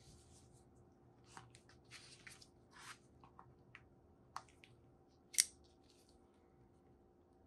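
Faint rustling and scraping of gloved hands on a cardboard smartphone box, then two sharp clicks a second apart, the second and louder one as a folding pocket knife's blade snaps open.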